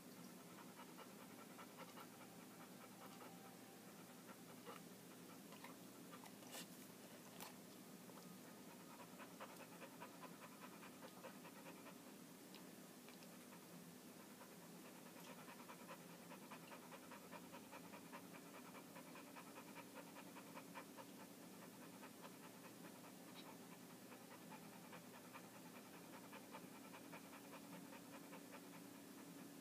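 Pit bull panting quickly and steadily, faint. This is the fear panting of a dog frightened by a thunderstorm.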